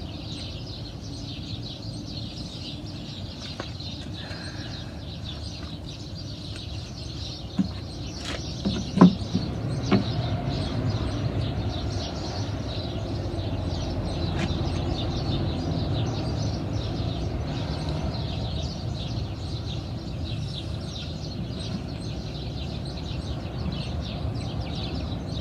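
Outdoor background of a steady low rumble with faint bird chirps, and a few light knocks from a particleboard nightstand being worked on, clustered a little before the middle. The rumble grows somewhat louder about halfway through.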